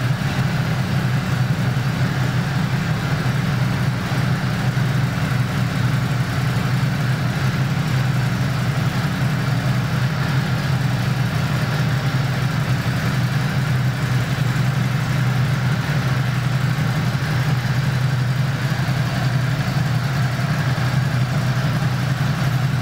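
Ducati Multistrada V2 S's 937 cc Testastretta L-twin engine idling steadily.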